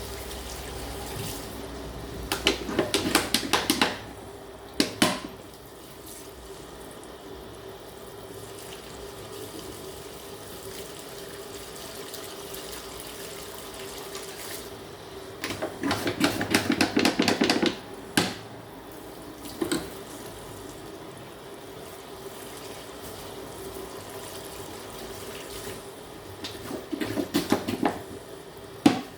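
Water running from a tap into a sink, with a steady hum under it. Three louder bursts of rapid clattering, each about two seconds long, come near the start, about halfway through and near the end, with a few single sharp clicks between them.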